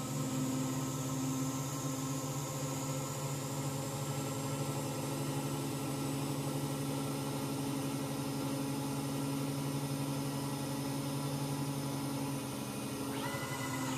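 Lathe spindle running steadily with a high whine while a turning tool cuts down a steel milling-cutter shank, throwing long stringy chips. Near the end a few short tones step up and down in pitch.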